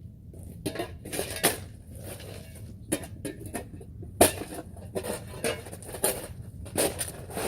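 Broken concrete rubble being shoveled up: a string of irregular clattering knocks and scrapes, the sharpest about four seconds in.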